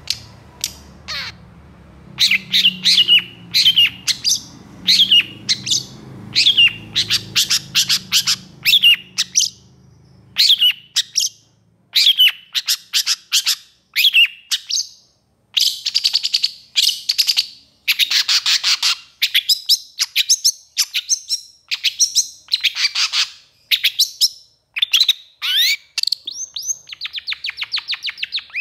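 Long-tailed shrike (pentet) singing in long excited runs of rapid, harsh chattering notes, phrase after phrase with short breaks between them. A low hum sits under the song for the first ten seconds or so.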